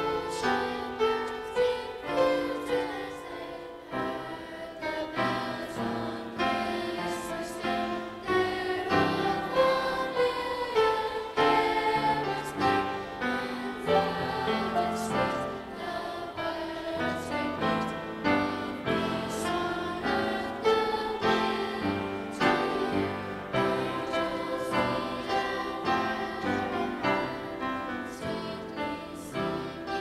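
Middle school choir singing, accompanied by an upright piano.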